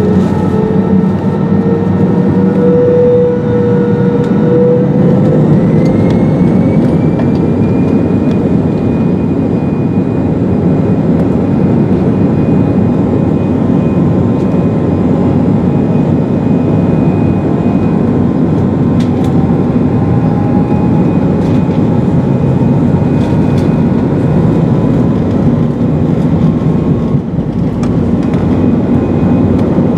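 Airbus A319's CFM56-5B turbofan engines at takeoff thrust during the takeoff roll, heard from inside the cabin over the wing: a loud, steady roar with whining fan tones that rise in pitch over the first several seconds and then hold, along with the rumble of the landing gear on the runway.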